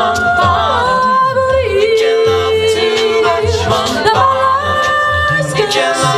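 An a cappella vocal group singing held chords in close harmony, the voices moving together from chord to chord over a sung bass line.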